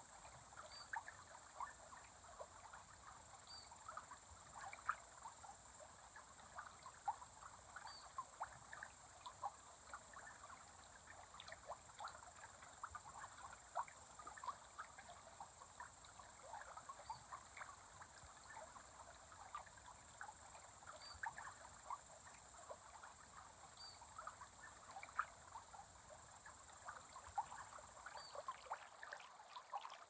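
Evening chorus of crickets: a steady high-pitched trill, with a dense scatter of short clicks and ticks beneath it and an occasional faint high chirp.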